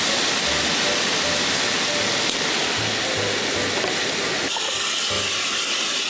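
Thinly sliced meat sizzling steadily on a hot multi griddle pan as it is stir-fried, with faint background music.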